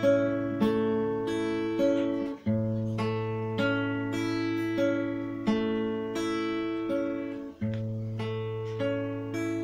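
Nylon-string classical guitar fingerpicked: arpeggiated chords, a new note plucked about twice a second over a held low bass note. The bass note is re-struck twice, with a change of chord.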